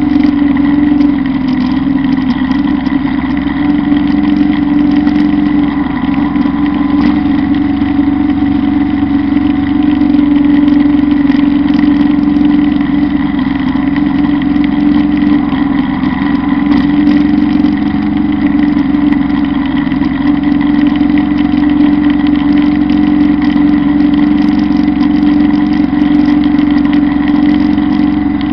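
Kubota Bulltra B1-17 compact tractor's three-cylinder diesel engine running steadily under load while it drives a Zanon drum mower cutting grass. The engine note stays even, with a thin steady whine above it.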